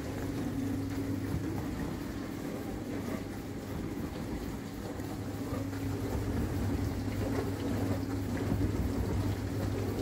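Electra dishwasher running mid-cycle: a steady low mains hum with a rushing wash noise over it.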